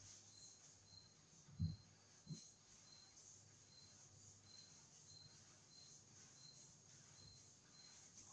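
Faint cricket chirping steadily, about two short high chirps a second, over a faint high hiss. Two dull thumps come close together about a second and a half in.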